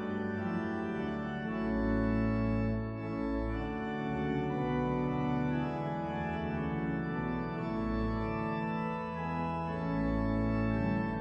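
Organ playing slow, sustained chords over held bass notes, the chords changing every second or two.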